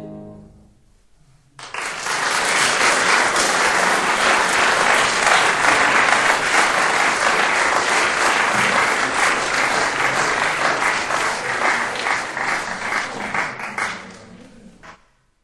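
Audience applauding after a live classical performance. The music's last sound dies away, the clapping breaks out suddenly about a second and a half in, holds steady, and fades out near the end.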